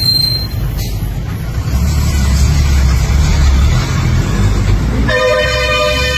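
A low rumbling noise, then, about five seconds in, a loud steady horn-like tone sets in and holds.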